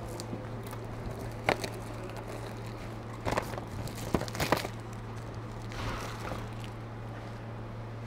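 Workshop handling noises: a few light knocks and clicks of parts and tools being moved, with a soft rustle, over a steady low hum.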